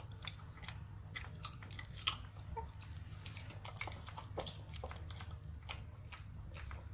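Pekingese dog crunching and chewing a cheese biscuit, a run of small irregular crunches.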